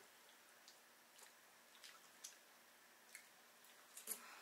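Faint eating sounds: scattered soft clicks and squishes of chewing and of fingers picking at takeout ribs and fries in cardboard boxes, with a slightly louder cluster of clicks near the end.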